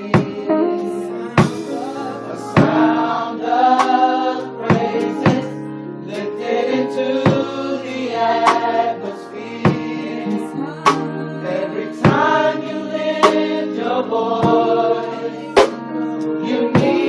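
Gospel choir singing a praise song with band accompaniment, many voices holding chords, punctuated by sharp drum hits every second or two.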